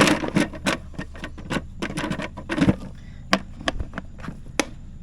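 Irregular light clicks and knocks, as of equipment being handled, with a cluster in the first three seconds and scattered single knocks after, over a low steady hum.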